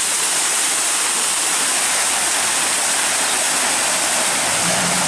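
Loud, steady rushing of floodwater, an even roar with no breaks, which cuts off abruptly at the end.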